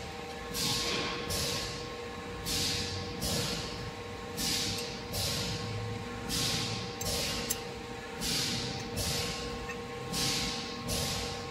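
Pneumatic valves and cylinders of an automatic filling machine cycling. Short hisses of exhausting air come in pairs about every two seconds over a steady electrical hum.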